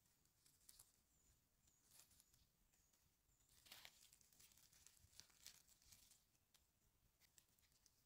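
Near silence, with faint rustles and small snaps as chanterelle mushrooms are plucked by hand from needle-strewn forest litter.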